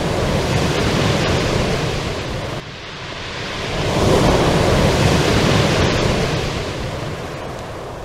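Sea waves breaking and washing over a pebble beach, in two surges: the first cuts off abruptly about two and a half seconds in, and the second swells about a second later and slowly fades.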